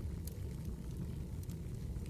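Wood fire crackling: a few sharp pops and snaps over a steady low rumble.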